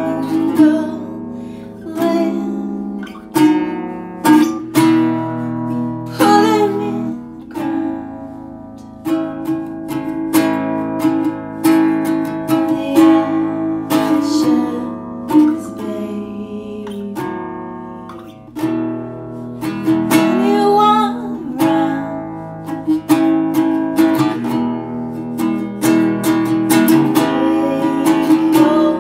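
Song played on strummed and picked acoustic guitar, with a male voice singing at times.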